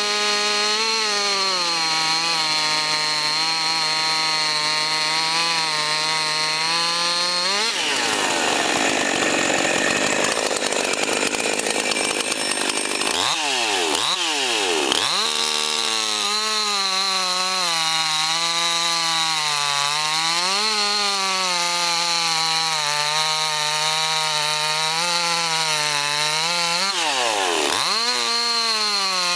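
Husqvarna 346XP two-stroke chainsaw, fitted with a 7-pin .325 sprocket and an 18-inch bar, running at full throttle as it cuts through a log; the engine note wavers under load. About a third of the way in it turns into a noisy stretch with no clear pitch, then drops and revs back up a couple of times before settling back into the cut, and it dips and recovers once more near the end.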